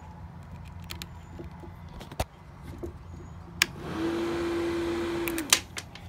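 A few sharp clicks, then a 12 V car radiator fan's electric motor runs with a steady whirring hum for about a second and a half, about four seconds in, and cuts off suddenly: a first attempt at powering it that didn't work.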